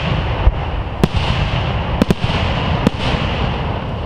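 Aerial fireworks shells bursting: about five sharp bangs, two of them close together about two seconds in, over a steady noisy background.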